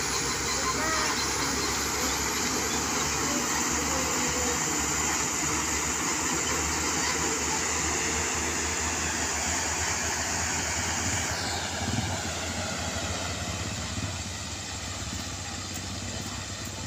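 Coal-hauling truck pulling two dump trailers driving past on a haul road, its engine running steadily with road noise. The sound fades after about twelve seconds as the truck moves away.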